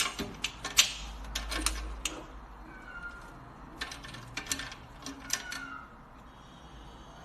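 A cat meowing softly twice, amid scattered sharp clicks and taps.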